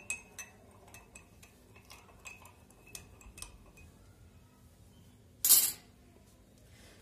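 Metal spoon stirring a drink in a small glass cup, clinking against the glass in quick irregular taps with a light ring, for about three and a half seconds. A short, louder clatter comes about five and a half seconds in.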